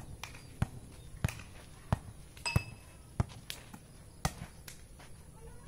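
Volleyball being bounced and struck, a run of sharp thuds about one every two-thirds of a second.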